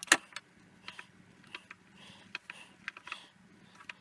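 Gears of a Myford Super 7 lathe's gear train being turned and handled by hand: one sharp click at the start, then light, irregularly spaced metallic ticks.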